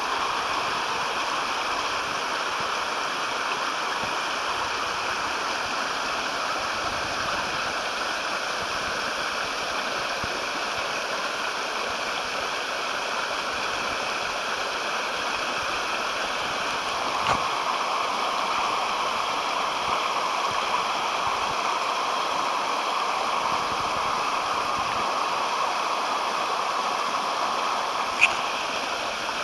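Mountain stream running over rocks and small cascades: a steady rush of water, with one brief click near the end.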